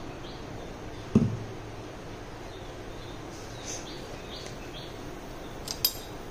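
Steady background hiss with faint, short high chirps like birds calling in the distance. A single dull thump about a second in is the loudest sound, and two sharp clicks come near the end.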